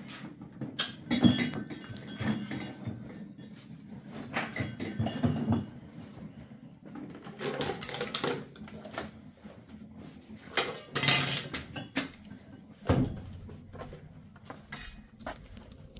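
Household handling noises: a series of knocks, thumps and rustles as things are picked up and moved. Near the end comes a sharper knock, after which a low steady rumble sets in.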